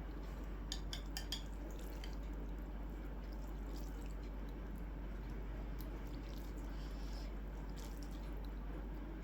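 Quiet eating sounds: soft wet squishing of food being mixed and chewed, with a few light clicks about a second in, over a steady low hum.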